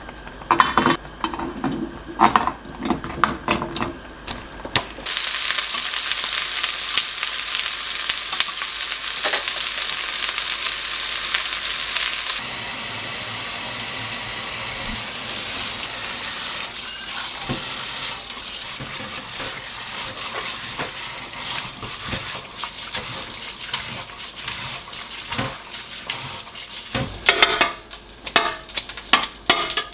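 Food sizzling in a hot frying pan while being stirred and scraped with a utensil. The sizzle starts suddenly about five seconds in, loudest for several seconds, then settles to a quieter steady sizzle; there is clinking and knocking of utensils and cookware before it and again near the end.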